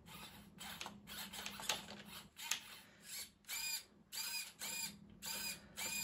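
Small hobby servos in an RC Bobcat skid-steer loader whining in short bursts as its loader arm and bucket are jogged from the transmitter. The whines are faint and brief at first. From about halfway through they come about twice a second, each one rising and then falling in pitch.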